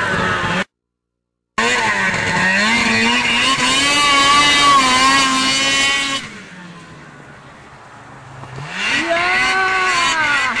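Snowmobile engine revving hard under throttle, its pitch wavering up and down. A second of dead silence comes from an edit near the start. About six seconds in it drops to a quieter, lower drone, then climbs again near the end.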